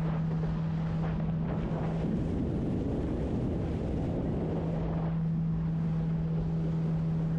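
Motorboat under way: a steady engine hum under wind rushing over the microphone.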